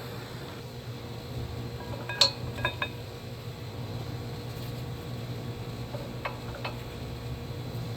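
Light metallic clinks of tools or brake parts being handled: three sharp, ringing clinks close together, then two more a few seconds later, over a steady low background hum.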